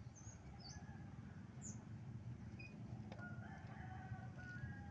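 Faint bird sounds: a few short high chirps early on, then one long call with stepped pitch, lasting nearly two seconds, from about three seconds in.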